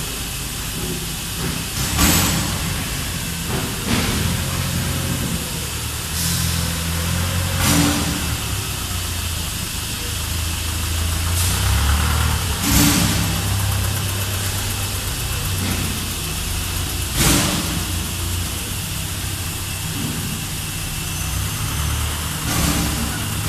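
Industrial machinery noise on a drum oil filling line: a steady low engine-like hum, cut by about eight short sharp noises every few seconds, the loudest about two, thirteen and seventeen seconds in.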